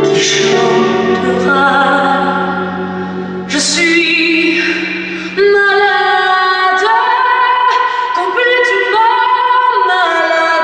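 Music with a woman singing long, wavering held notes over an accompaniment; about five seconds in a new, louder phrase begins abruptly.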